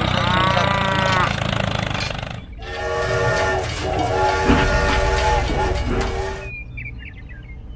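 A low engine-like rumble with a rising-and-falling tone over it cuts off about two and a half seconds in. Then a toy steam locomotive's whistle sounds in several held, chord-like blasts for about four seconds.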